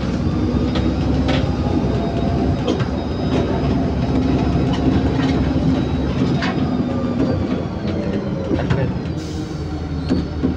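Cabin noise inside a moving LiAZ 5292.65 bus: a steady low drone of the engine, drivetrain and road, with a faint hum and scattered clicks and knocks from the body and fittings.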